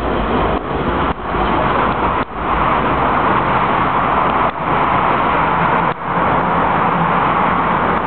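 Docklands Light Railway B92 Stock train running out of the station: a steady loud noise, broken by several sudden, brief drops in level.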